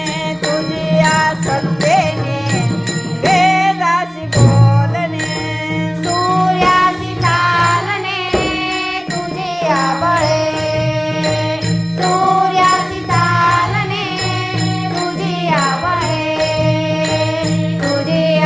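Marathi devotional bhajan music: a gliding, wavering melody over a steady low drone, with jingling percussion keeping an even beat.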